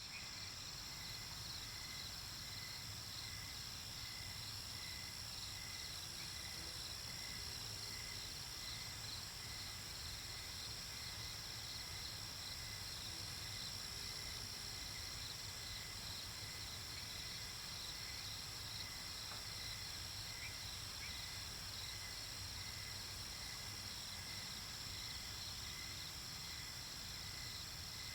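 Night-time chorus of crickets and other insects: several steady high trills, one pulsing rapidly, over a lower chirp repeating at an even pace.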